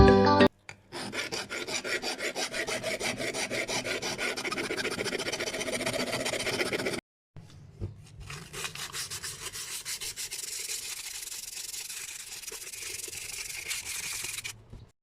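Hand abrading of a steering wheel: rapid back-and-forth rubbing strokes, about four a second, in two runs with a brief pause about seven seconds in.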